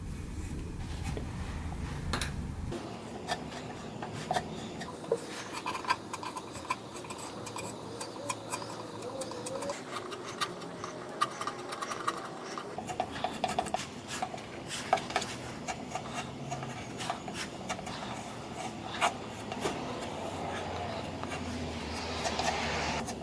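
Wood filler being spread and scraped over a wooden panel with a small spatula: irregular soft scrapes broken by light ticks of the tool.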